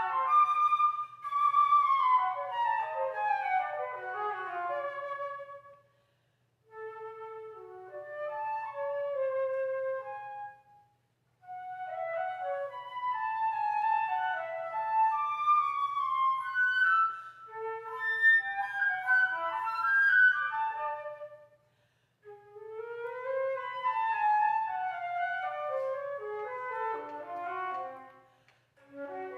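Unaccompanied flute playing a classical solo: quick runs of notes, many falling, broken by a few short pauses.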